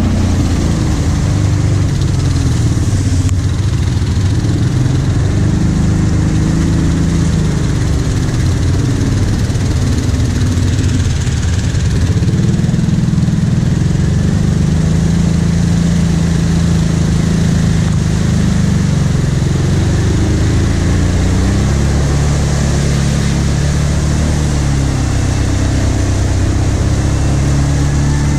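Kawasaki Brute Force 750 ATV's V-twin engine running under load through mud, its pitch rising and falling as the throttle opens and closes.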